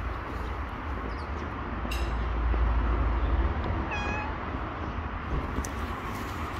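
Calico cat giving one short, soft meow about four seconds in, over a steady low background rumble.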